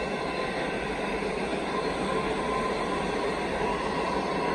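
Comeng electric suburban train passing close by: a steady rush of wheels on the track, with a faint steady whine over it.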